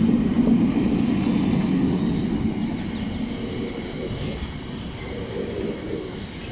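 DB Cargo Class 60 diesel locomotive passing close by, its engine loud at first and fading over the first few seconds as it moves away, then the rolling of oil tank wagons going by on the rails.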